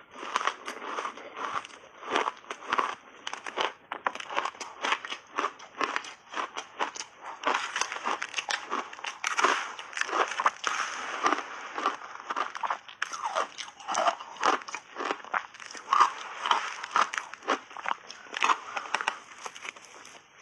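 A person biting and chewing shaved ice in big bites: a dense, irregular run of crisp crunches, several a second, without a break.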